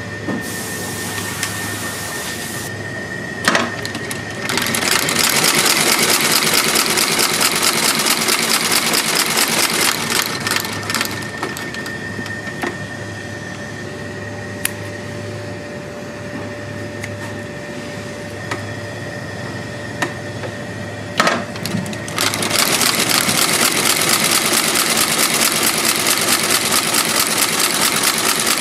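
Heavy-duty boot sole stitching machine sewing through the thick sole layers, running fast and rhythmic in two long spells, the first starting about four seconds in and the second near the end. In between, its motor runs more quietly with a few sharp clicks.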